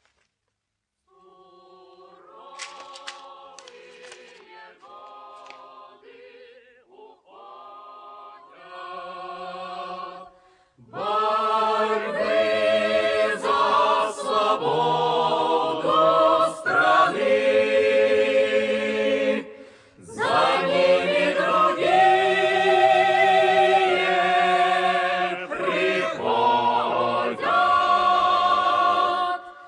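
A choir singing a cappella. It comes in faintly about a second in, swells to full, loud singing about eleven seconds in, and breaks off briefly near twenty seconds before carrying on.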